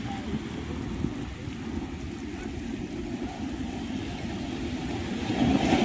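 Wind rumbling on the microphone over the wash of surf breaking on the shore, growing louder near the end.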